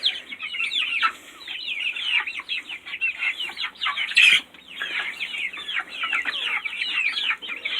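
A flock of chickens clucking and calling, many short falling calls overlapping without a break, with one louder sound a little past four seconds in.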